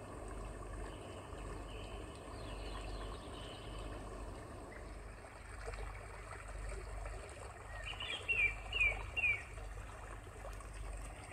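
The pod's forest-and-nature ambience soundtrack playing through its speakers: recorded birds chirping over a steady background of running water. About eight seconds in comes a quick run of four bright chirps, the loudest sounds.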